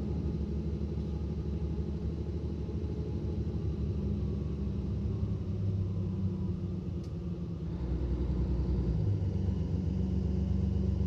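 Mercedes-Benz Citaro bus's OM457 six-cylinder diesel engine running with a low, steady drone, growing louder about eight seconds in.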